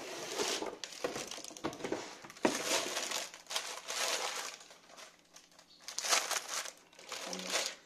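Clear plastic film wrapping crinkling and a cardboard box rustling as a nested set of baking trays is slid out and lifted, in several separate bursts.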